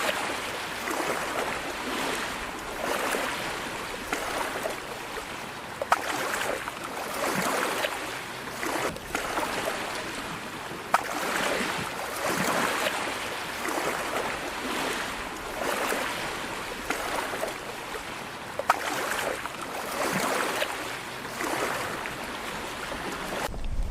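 Water washing and splashing in repeated swells, about one every second and a half, with a few sharp clicks.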